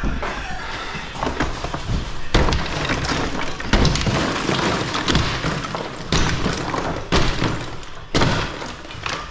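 A wall being smashed apart by hand: a series of heavy thuds and crashes with breaking material and clattering debris, about six hard hits.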